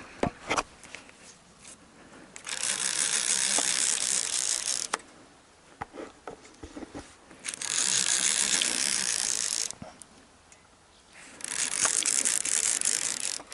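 Fishing reel running in three bursts of about two seconds each, with short pauses between them, as line is worked on a hooked lake sturgeon.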